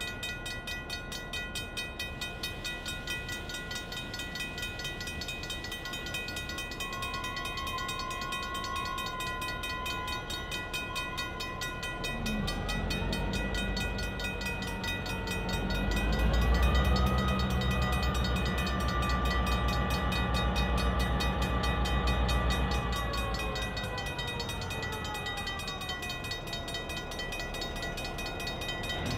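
EMD GP9 diesel locomotive's 16-cylinder 567 two-stroke engine throttling up as it pulls slowly toward a grade crossing. The engine note rises in two steps about twelve and sixteen seconds in, is loudest just after, then winds back down near the end. Under it a grade-crossing bell rings steadily.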